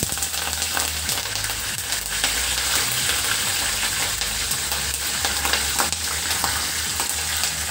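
Curry leaves, dried red chillies and crushed garlic sizzling in hot oil in a steel kadai for a tadka (tempering), a steady hiss with scattered sharp pops and crackles.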